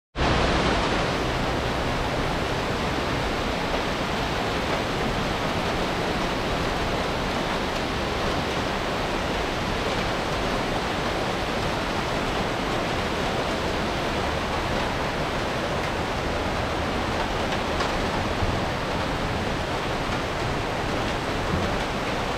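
Cloudburst: heavy rain pouring down as a dense, steady hiss.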